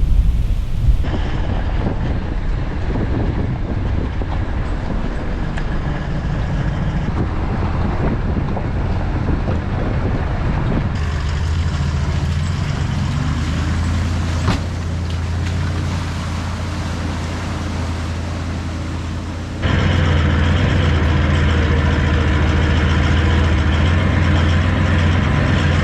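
Four-wheel drive's engine running under way, a steady low drone with road noise, in several spliced shots whose sound changes abruptly about 1, 11 and 20 seconds in.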